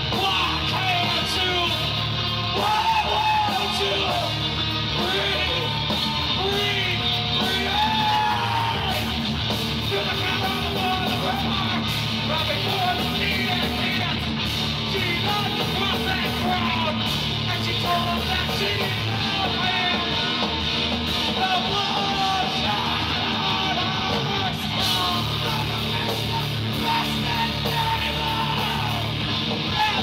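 Heavy rock band playing live: shouted, yelled vocals over electric guitars, bass and drums.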